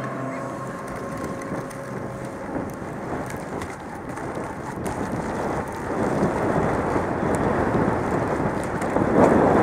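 Wind rushing over a helmet-mounted camera's microphone, mixed with mountain bike tyres rumbling over a dirt trail during a descent. It grows louder about six seconds in and is loudest near the end.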